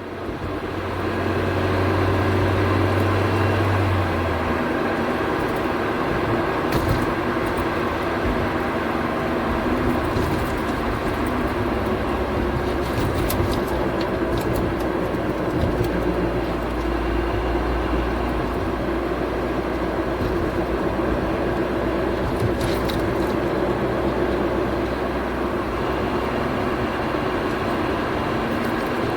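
Honda Civic Type R (EK9) driving with a worn front hub bearing rumbling and growling. The rumble's pitch shifts as road speed changes, a sign of the bearing failing.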